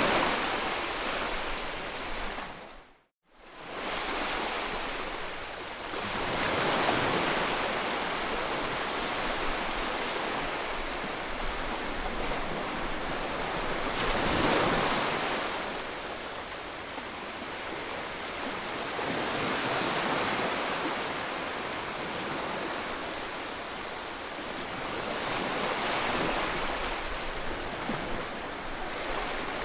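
Ocean surf: waves breaking and washing in, rising and falling about every six seconds. The sound drops out briefly to silence about three seconds in.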